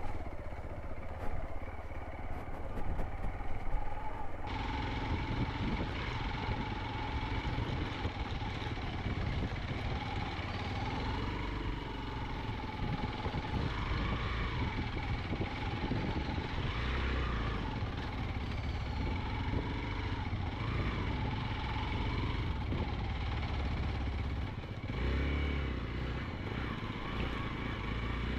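Hero XPulse 200 motorcycle's single-cylinder engine running on the move, its pitch rising and falling with the throttle; the sound changes abruptly about four seconds in.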